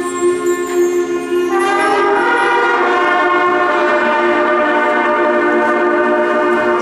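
Second-year middle school concert band of woodwinds and brass holding a full, sustained chord, moving to a new chord about a second and a half in and holding it.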